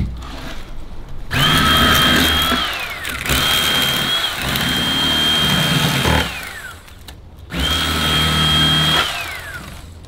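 Old Timer electric fillet knife cutting a crappie, switched on in three bursts of a steady motor whine, the pitch falling away each time the trigger is let go.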